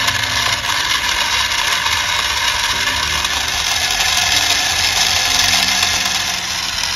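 A small motor running steadily, heard mostly as a loud, even hiss.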